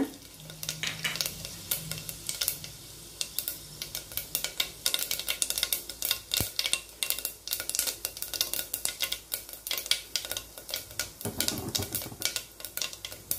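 Fennel seeds sizzling and crackling in hot ghee and oil in an aluminium pressure cooker as they are tempered, a dense run of irregular small pops.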